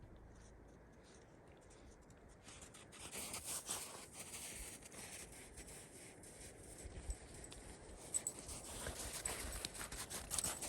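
Footsteps crunching on a rocky trail, starting about three seconds in as an uneven run of scuffs and knocks.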